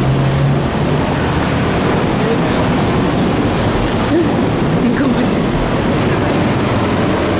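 Busy city road traffic below: a steady, unbroken wash of engine and tyre noise, with a low engine hum in the first second.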